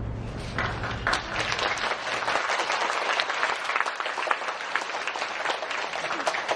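Audience applauding, beginning about half a second in as the band's last low chord dies away.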